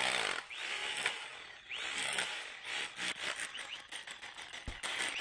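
Electric drill revving in short bursts as its bit scrapes into and loosens hard ground, with scattered sharp clicks from the soil.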